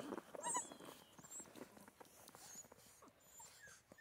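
Central Asian Shepherd puppies nursing: one puppy gives a short squeal about half a second in, followed by faint high squeaks and soft suckling clicks.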